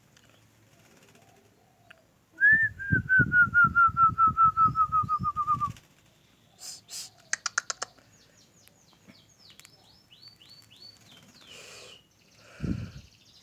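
Birds calling. First a loud rapid run of about sixteen quick notes, each falling slightly in pitch, lasting about three seconds. Then a cluster of quick high clicks and a string of short high notes that sweep downward.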